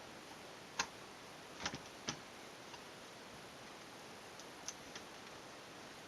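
A handful of short, sharp clicks and taps from small laptop parts and connectors being handled during a teardown, spaced irregularly over a faint steady hiss.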